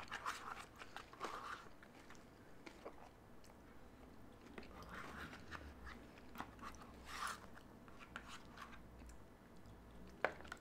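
Chewing and biting on a forkful of loaded hash browns, with scattered light clicks of a fork picking at the paper food tray and one sharper click near the end.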